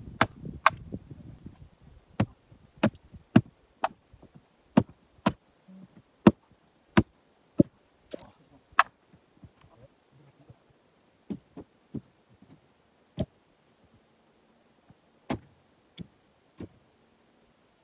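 Sharp wooden knocks of a splitting maul striking a jarrah round to split it for firewood. A quick run of strikes comes about two a second for the first nine seconds, then a few scattered knocks with pauses between.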